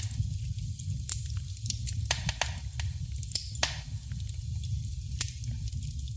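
Wood fire crackling in a fireplace: a steady low rumble of burning logs with scattered sharp pops and snaps, a few of them louder, and a brief hiss in the middle.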